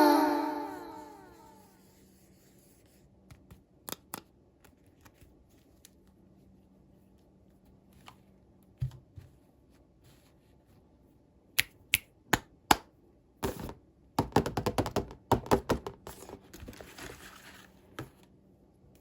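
Hands unboxing small plastic toys: scattered clicks and taps, then a busier stretch of clicking and rustling packaging near the end. A falling pitched sound effect fades out at the start.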